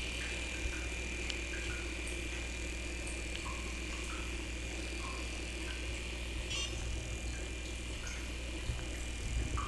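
Room tone: a steady low hum with a thin high whine, and a few faint scattered small clicks.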